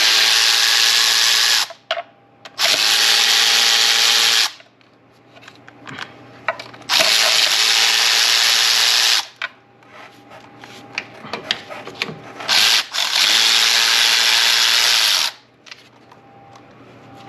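Handheld power tool of the drill kind running in four bursts of about two seconds each, with quieter clicks and handling noise of tools on the engine in the gaps.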